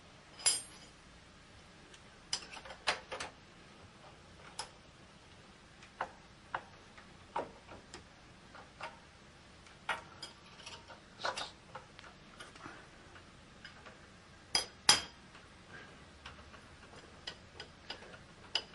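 Irregular metallic clicks and clinks of tools and metal parts being handled at a milling machine, with a louder double clack about fifteen seconds in.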